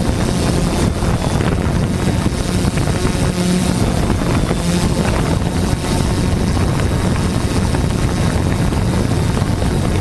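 Quadcopter drone's motors and propellers running steadily, picked up by the camera mounted on the drone, with wind noise on the microphone.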